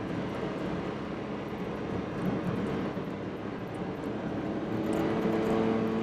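Steady road and tyre noise inside a car's cabin while driving at a constant pace, with a faint steady hum under it.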